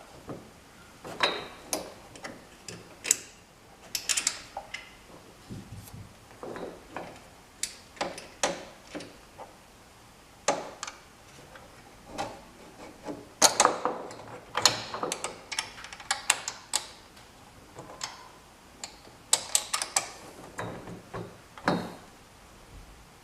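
Irregular clicks, taps and knocks of small metal hardware and mirror bracket parts being handled and fitted by hand, with busier clusters around the middle and near the end.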